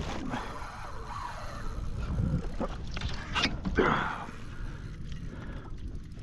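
Water splashing and sloshing beside a kayak as a large hooked fish thrashes at the side, with a few sharp knocks and a louder splash a little past halfway.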